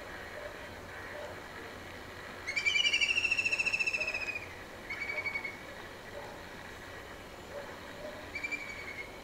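A bird calling: one loud, fast trill about two seconds long that falls slightly in pitch, then two shorter trills, one a little after halfway and one near the end.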